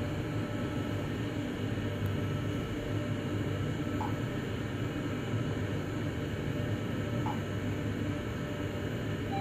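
Steady low hum and rumble inside a Mitsubishi Nexiez-MR traction elevator car travelling downward, with two faint brief tones about three seconds apart.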